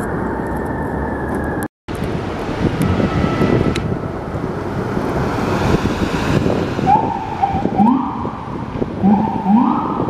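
City traffic and a passing vehicle engine. From about seven seconds in comes a string of four or five short, rising electronic siren whoops from the FDNY Battalion 9 chief's pickup, a 2018 Chevrolet 2500HD, as it pulls away on an emergency response.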